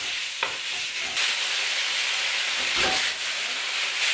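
Sliced beef sizzling in hot oil in a nonstick wok while a wooden spoon stirs it and scrapes the pan. The sizzle is a steady hiss that grows louder about a second in, with a few short scrapes or knocks of the spoon.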